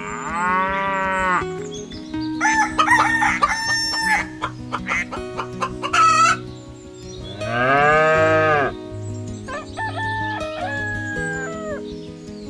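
A rooster crows twice, each crow a long arching call of about a second and a half, once at the start and again about eight seconds in. Shorter chicken clucks and squawks come between the two crows.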